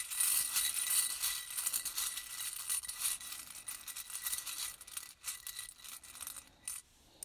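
A handful of small number charms rattling and clicking together as they are shaken and stirred before a cast: a dense run of fast clicks that thins out and dies away about five seconds in.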